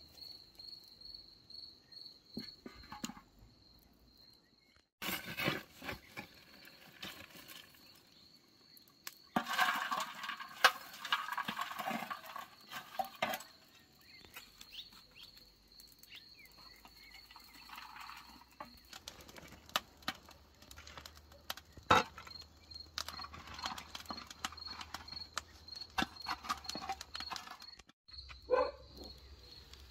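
Crickets chirping in a steady pulsing trill, overlaid by intermittent clicks, knocks and rustling from handling, loudest between about 9 and 13 seconds in. Near the end there is a short animal call.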